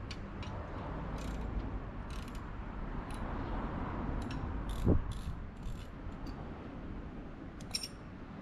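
Scattered metal clicks and clinks of hand tools at work on a Kawasaki KZ900 motorcycle, with one dull thump about five seconds in, over a steady low outdoor rumble.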